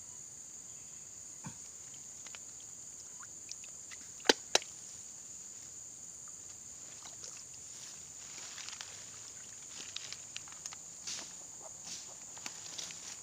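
Steady high-pitched drone of insects. Two sharp clicks come close together about four seconds in, and light rustling and small ticks follow in the second half.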